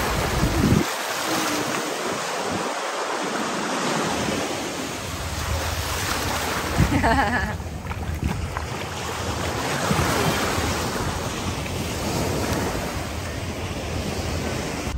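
Small waves breaking and washing up a sandy beach in shallow surf, the wash swelling and easing every few seconds.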